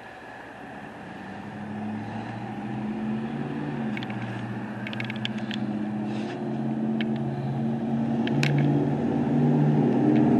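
Heavy truck's diesel engine running and growing steadily louder, with a few short sharp clicks in the middle.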